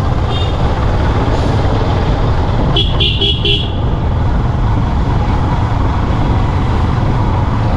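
Motorcycle riding at a steady pace, its engine and road noise running low and even. About three seconds in, a horn gives a quick run of about four short beeps.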